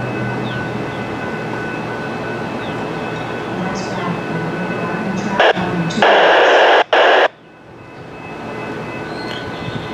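Railroad scanner radio letting out a loud burst of static about six seconds in, lasting just over a second with a short break, then cutting off abruptly, over a steady background noise.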